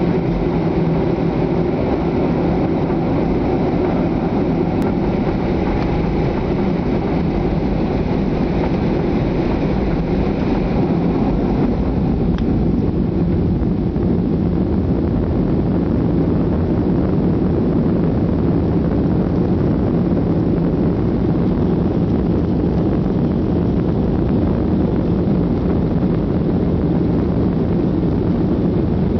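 Cabin noise of a Boeing 737 rolling on the ground, heard from a seat by the wing: a steady jet-engine hum and airframe rumble with a few steady low tones. The high hiss eases somewhat about twelve seconds in.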